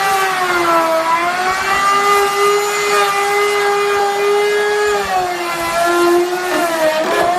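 An electric power tool's motor running with a steady whine that sags in pitch a few times as it takes load.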